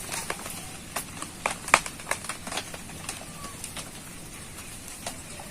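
Light crackling and sparse sharp clicks from the fire in a clay stove heating an empty kadai, with a short faint bird chirp about three seconds in.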